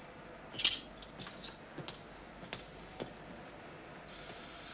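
Scattered light metallic clicks and knocks as a fitting on the drain pipe under a kitchen sink is worked on, the strongest about two-thirds of a second in. Near the end a steady hiss begins, the tap running water.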